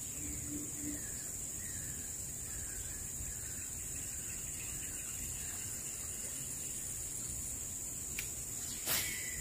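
Steady high-pitched insect drone from the surrounding vegetation, with a few faint falling chirps in the first half. A single sharp click near the end is the loudest sound.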